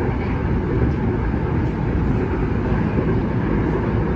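Steady running noise of a Tuen Ma line Kinki Sharyo–Kawasaki electric train, heard from inside the passenger car: an even rumble of the train on the rails.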